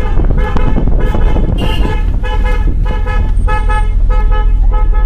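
Aftermarket musical car horn playing a tune of short notes, about three a second, over the low rumble of the moving car.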